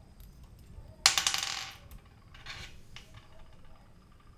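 A short burst of rapid metallic clicking and rattling from a miniature metal model bicycle being handled. It starts about a second in and fades out in under a second, with a couple of fainter clicks after it.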